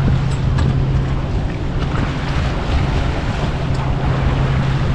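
Outboard motor idling with a steady low hum, under wind buffeting the microphone and water washing against the boat. A few light ticks sound over it.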